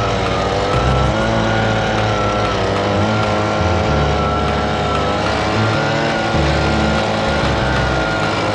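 Handheld cordless leaf blower running steadily, its motor whining as it blasts loose snow off a vehicle's hood.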